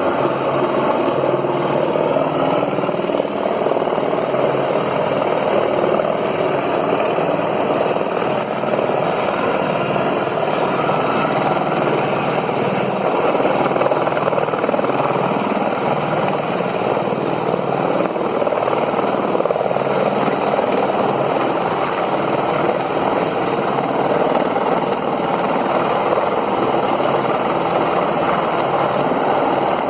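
A helicopter's rotor and turbine engine running steadily and loudly throughout.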